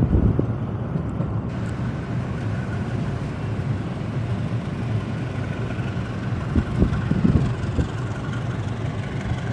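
Passenger train running steadily on the line, a continuous rumble with a few louder knocks about seven seconds in.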